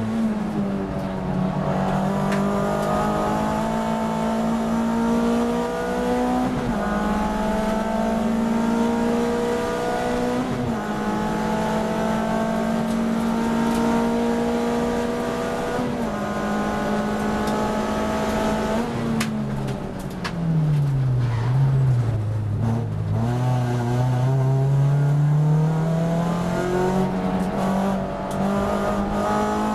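Onboard sound of a VW Lupo race car's engine under full throttle, pulling up a straight with gear changes every four to six seconds. A little past halfway it brakes for a corner and the engine note falls, then rises steadily again as the car accelerates out.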